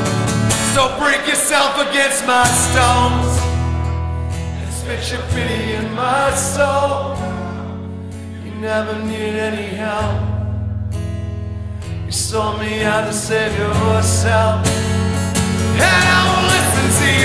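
Live acoustic performance: a strummed acoustic guitar with a man singing over it.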